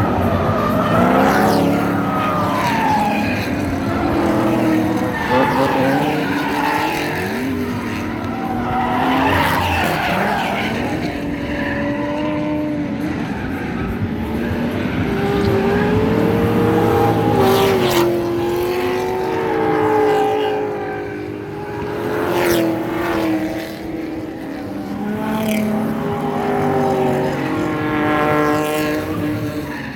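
Drift cars running hard: engines revving up and down at high revs, with several engines overlapping at times, and tyres squealing and skidding.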